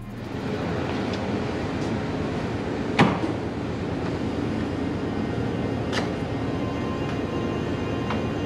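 Steady outdoor background noise with sharp clacks from the latch and handle of a shed-style garage door being opened. The loudest clack comes about three seconds in, another about three seconds later, and a third at the very end.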